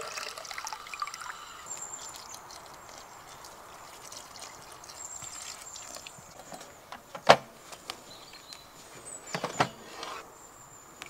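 Water running from a jerry can's tap into a steel mug, tailing off in the first second or so, then water poured into a bread maker's pan. A single sharp knock about seven seconds in, and a few more knocks near the end as the bread maker and the portable power station are handled.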